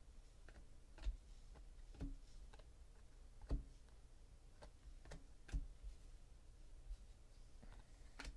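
Faint, irregular clicks and taps of glossy Donruss Optic baseball cards being flipped one behind another through a stack in the hands.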